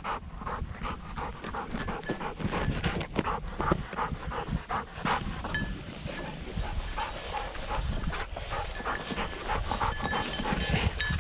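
A bird dog panting, with a steady run of irregular short rustles and crunches.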